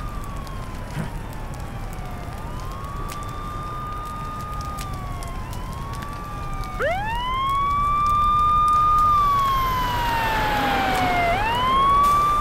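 Several sirens wailing over one another, each rising quickly, holding its pitch, then sliding slowly down. A louder, nearer one starts about seven seconds in.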